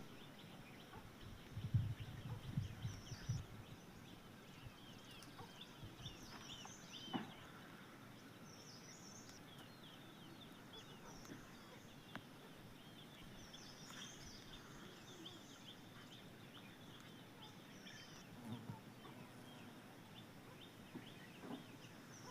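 Birds chirping steadily, with short high calls repeating every few seconds. A few low bumps sound about two seconds in.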